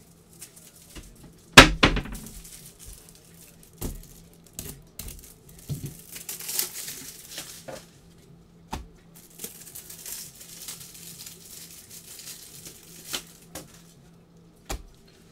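Foil trading-card pack wrappers crinkling and tearing open and cards being handled, with scattered clicks and taps. A sharp knock about a second and a half in is the loudest sound, over a faint steady hum.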